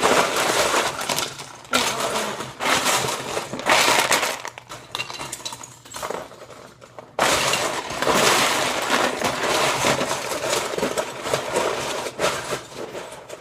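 Loose plastic Lego bricks clattering as hands rummage and sift through a pile of pieces, in spells of dense rattling with a quieter pause of a couple of seconds midway.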